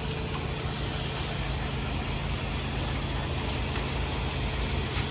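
Pressure washer spraying a steady hissing jet through a shooter tip at 8 gallons per minute, downstreaming soap onto a building, with the machine's engine running steadily underneath.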